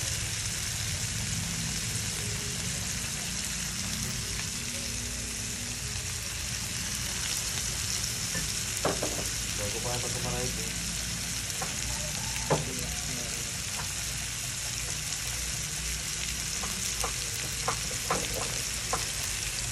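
Garlic shrimp sizzling in a nonstick frying pan, a steady hiss, with a few sharp clicks and taps of a metal spatula against the pan in the second half.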